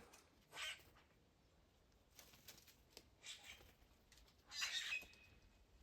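Faint bird calls: a few short high chirps spread over several seconds, the loudest just before the end.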